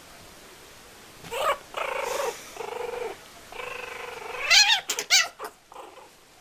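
Kitten growling and yowling while play-fighting with a puppy: a run of drawn-out, wavering growls starting about a second in, rising into a few short, sharp yowls near the end.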